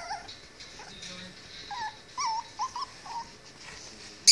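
Chihuahua puppies whimpering in a run of short, high squeaks, with a sharp click right at the very end.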